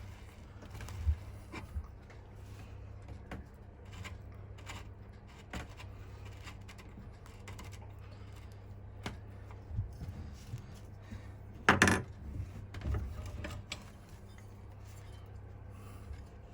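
Thread-cutting tap being turned by hand down a bicycle crank arm's pedal hole to cut a new thread for a Helicoil insert: scattered small metallic clicks and creaks as it is turned and backed off, with a louder cluster of clicks about twelve seconds in.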